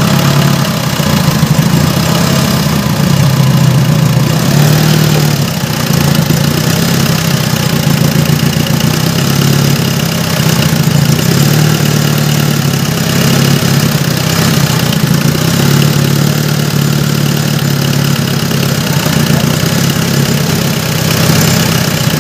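Mitsubishi 4D56 four-cylinder diesel engine idling steadily on its first run after a top overhaul.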